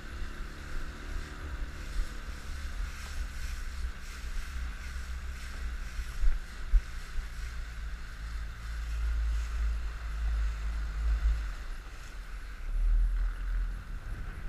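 Outboard motor of an inflatable coach boat running steadily under wind buffeting on the microphone; the engine note drops away about eleven seconds in. Two sharp knocks come about six seconds in.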